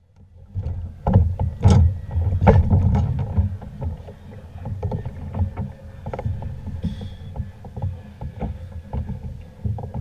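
Wind and water rumbling around a kayak at sea, with scattered knocks and clicks on the hull and gear. The loudest knocks come about one to two and a half seconds in.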